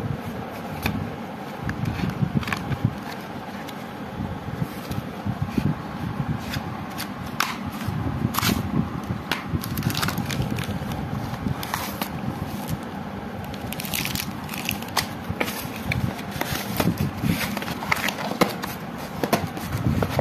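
A cardboard box of sparklers being handled and opened, its paper and plastic wrapping crinkling, with scattered scrapes and clicks.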